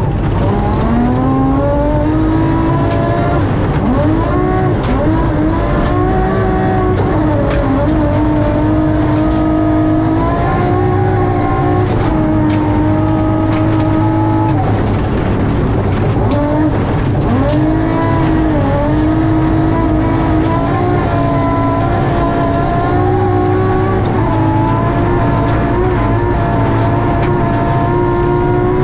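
BMW M3 rally car's engine at hard throttle, heard inside the cabin. The pitch climbs through each gear and drops back at every upshift, with a short lift and downshifts about halfway through before it pulls up through the gears again.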